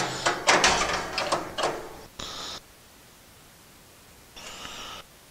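A metal retaining clip and the grill's infrared burner tray clicking and rattling as the clip is worked onto the burner's gas fitting by hand. Then come two short scraping sounds, one a little after two seconds in and one near four and a half seconds.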